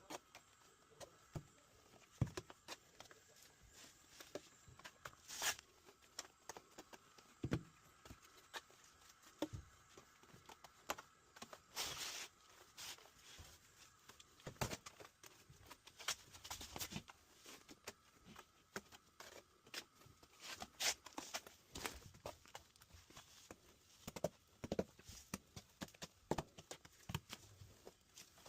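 Irregular light knocks, taps and short scrapes of hand work in a bathroom under construction, spaced unevenly throughout.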